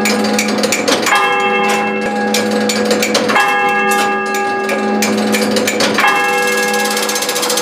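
Church clock bell struck by the turret clock's hammer, striking the hour: three strokes about two and a half seconds apart, each ringing on with a long hum. Mechanical clicks sound between the strokes, and a fast, even rattle of clicks begins near the end.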